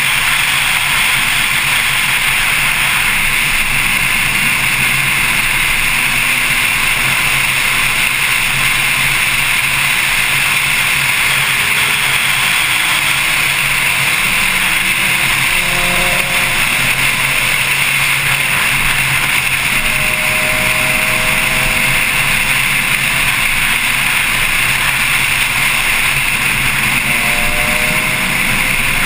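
Steady loud rush of wind and road noise from a Porsche Carrera S at track speed, heard through a camera on its front bonnet. The engine is only faint, its pitch climbing near the end.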